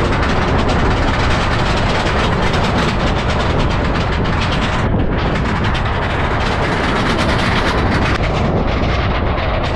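Yukon Striker dive coaster train running along its steel track: a loud, steady rattle of the cars on the rails, mixed with wind on the action camera's microphone.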